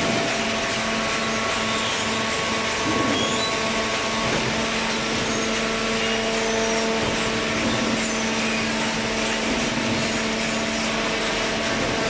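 Horizontal hydraulic cardboard baler and its feed line running, a steady industrial drone with several constant hum tones over a dense mechanical noise.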